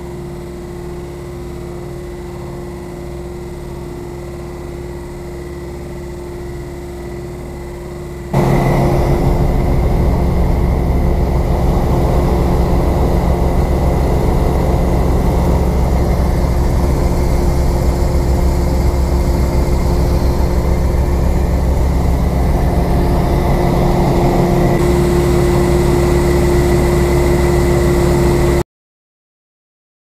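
Sampo 580 combine harvester running: a steady machine drone with a constant whine. About eight seconds in it becomes much louder, and it cuts off suddenly shortly before the end.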